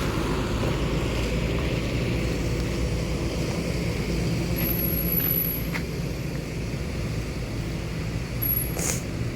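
Bus engine running steadily at idle, a constant low rumble with no horn sounding. A short sharp click near the end.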